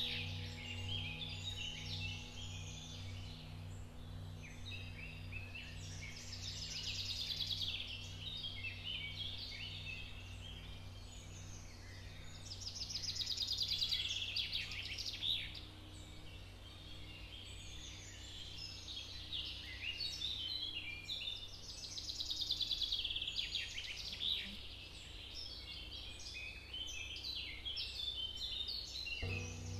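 Ambient soundtrack: dense chirping like birdsong, swelling every several seconds, over a low drone that pulses steadily.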